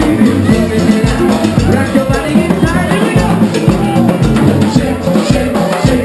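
Live band playing loud amplified music: drum kit and hand drums keep a steady beat under electric guitar.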